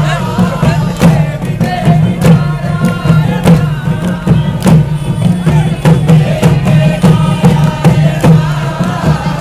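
Group singing of a Kerala folk song (nadan pattu) in chant-like lines over repeated drum beats, with crowd noise around it.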